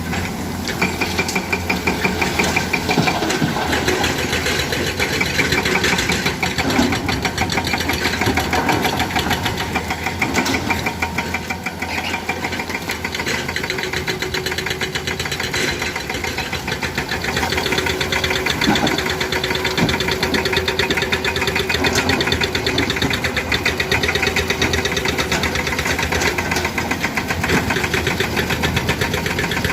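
Komatsu PC200 excavator's diesel engine running steadily and loud with a fast even firing rhythm, as it works loading broken stone, with a few short knocks in between.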